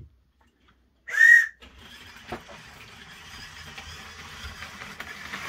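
A whistle blown once in a short, shrill blast about a second in, the signal for the model train to depart. It is followed by the quiet, steady running of a Hornby model train on its track, slowly growing louder.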